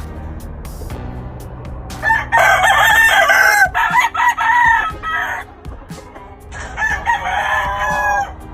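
Gamefowl rooster crowing twice: a long crow starting about two seconds in, then a shorter crow near the end.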